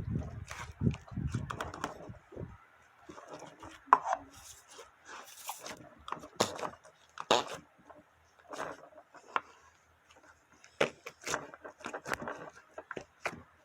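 Slime being squeezed and pressed by hand, giving irregular sticky clicks and pops.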